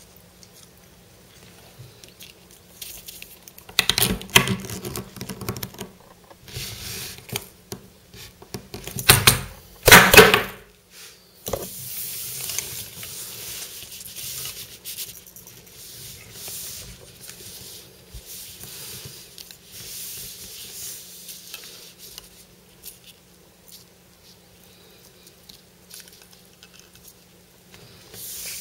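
Plastic spring-mounted jumping animal toys being handled: knocks and clatter of the plastic figures, springs and bases against each other and the table, loudest about ten seconds in, then lighter rubbing and handling noise.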